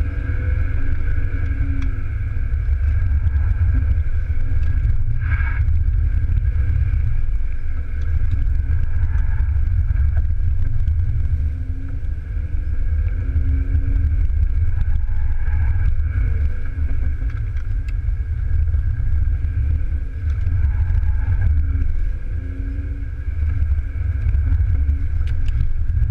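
BMW E36 320i's 2.0-litre straight-six heard from inside the cabin under hard driving, its revs rising and falling through gear changes and corners, over a heavy road and tyre rumble. The loudness dips briefly several times where the throttle is lifted.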